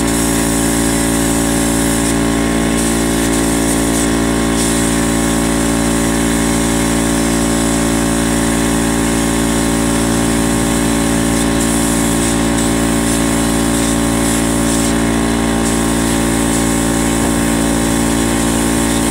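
Small electric tank air compressor running steadily with a constant motor hum. Air hisses from a paint spray gun over it, dropping away briefly a few times as the trigger is let off.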